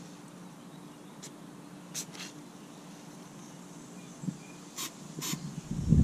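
Short spurts of aerosol carburettor cleaner hissing, two about two seconds in and two more near the end, over a faint steady hum.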